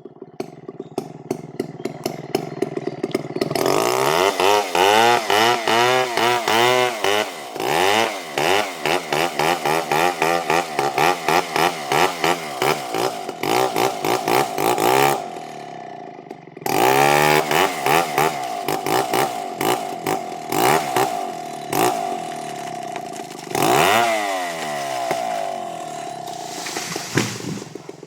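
Chainsaw cutting into a coconut palm trunk, its engine revving up and down again and again. It drops back briefly about fifteen seconds in and again a little before the end, then picks up again each time.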